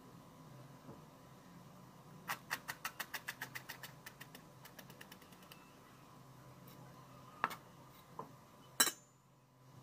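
Chef's knife chopping quickly on a plastic cutting board while mincing, about eight sharp taps a second in a short burst that fades away. A few single knocks of the blade follow near the end, the last one the loudest.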